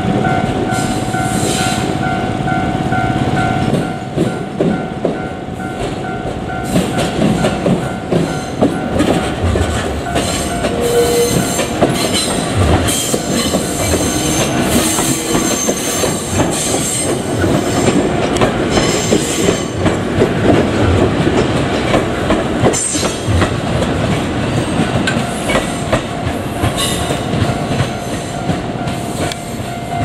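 JR Kyushu 787 series electric train rolling slowly over a level crossing, its wheels clicking and thumping over the rail joints, with the crossing's warning bell ringing throughout.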